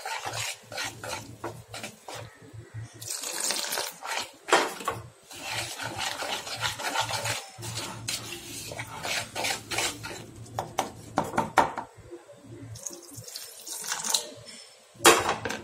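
Wire whisk clinking and scraping against a ceramic bowl while stirring gram-flour (besan) batter for boondi, in quick irregular strokes. Water trickles into the bowl near the end.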